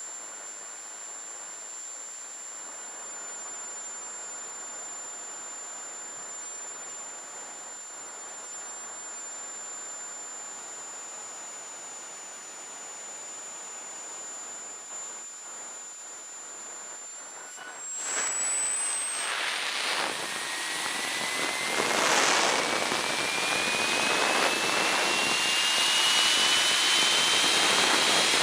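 JetCat P-20 micro jet turbine going through its kerosene self-start: first a steady high whine, then about two-thirds of the way through it lights and a louder rushing roar builds, with a whine rising steadily in pitch as the turbine spools up.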